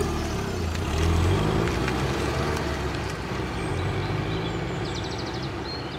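Car engines running as the vehicles pull away: a low engine rumble that swells about a second in, then slowly fades.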